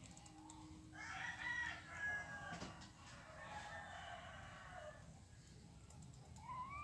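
Rooster crowing, faint: a drawn-out call beginning about a second in, breaking once and carrying on until nearly five seconds in.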